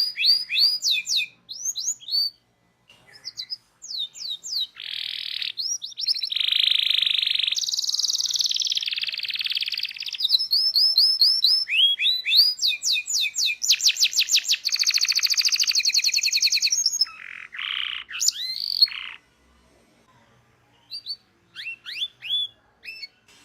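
Domestic canary singing a full song: fast runs of repeated rising notes and dense rolling trills, mixed with buzzy held phrases. It falls silent for about two seconds near the end, then goes on with scattered short notes.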